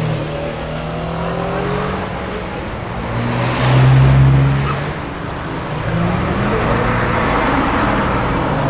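Cars driving past with their engines running. The loudest passes about four seconds in, followed by a steady engine rumble.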